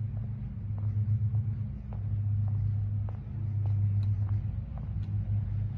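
Steady low rumbling hum with faint scattered ticks.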